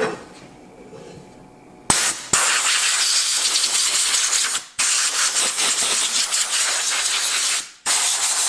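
Compressed-air blow gun hissing in four blasts, the first short, starting about two seconds in, blowing dirt out of a chainsaw around its air filter.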